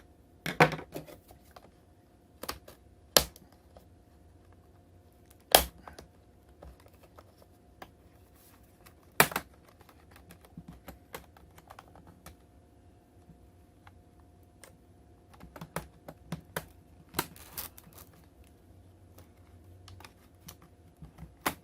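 Plastic snap clips of an Acer Aspire 5 laptop's bottom cover popping loose as it is pried open: sharp, irregular clicks and snaps with softer ticks between.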